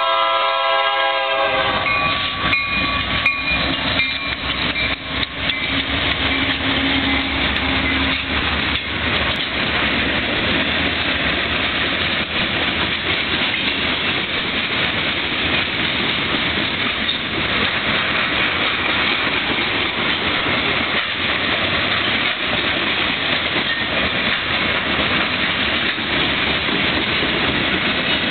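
Union Pacific diesel freight locomotives sounding a chord horn that cuts off about a second and a half in, then running past, followed by a long string of freight cars rolling by with steady clickety-clack of wheels over the rail joints.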